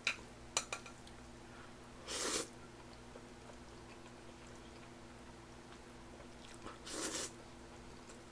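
A person slurping cold spicy mixed noodles twice, once about two seconds in and again about seven seconds in. Near the start there are a couple of sharp clicks of metal chopsticks against the pot. A steady low hum runs underneath.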